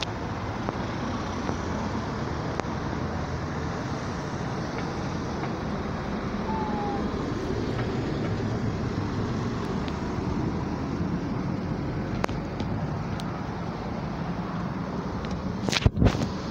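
Street traffic, with cars and a box lorry driving past and a steady, even rumble of engines and tyres. Shortly before the end come two sharp knocks, louder than the traffic.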